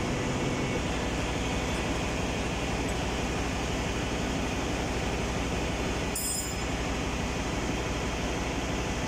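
Steady engine-room machinery noise: a constant drone with a low hum underneath, unchanging in level.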